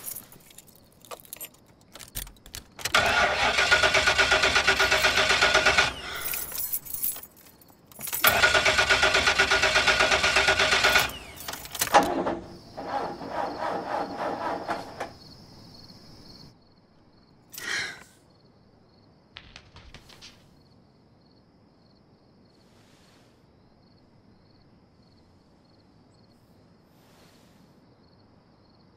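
A car's starter cranking the engine in two long tries of about three seconds each, then a weaker, shorter try, with key clicks around them. The engine never catches, a car that will not start.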